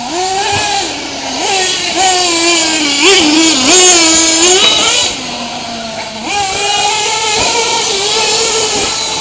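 Small two-stroke nitro engines of 1/8-scale RC racing trucks. The nearest one whines, rising and falling in pitch as the throttle is worked. It is loudest about three to four seconds in, dips lower for a moment at about five seconds, then picks back up.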